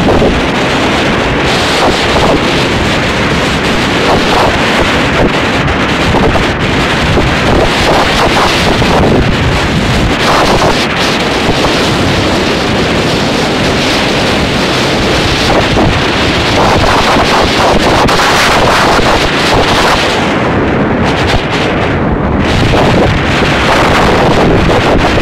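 Heavy wind buffeting the microphone of a moving motorcycle, a loud steady rush with the motorcycle's engine running beneath it.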